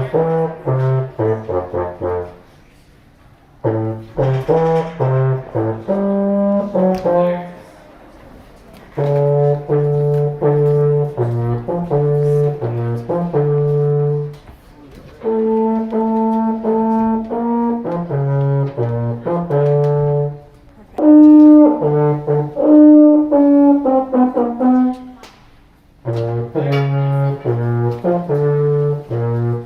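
Solo baritone horn playing a melody in phrases of quick notes and held notes, with short pauses of about a second between phrases.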